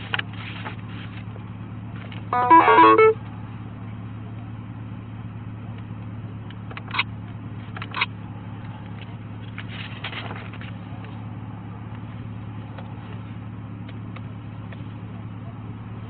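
Steady low hum inside a parked patrol car, broken about two and a half seconds in by a loud, quick run of electronic tones, then two short beeps a second apart a few seconds later, the kind of alert tones a police radio or in-car computer gives.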